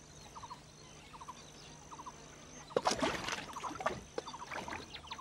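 Water sloshing and splashing in a muddy waterhole, loudest about three seconds in, over faint short repeated chirps.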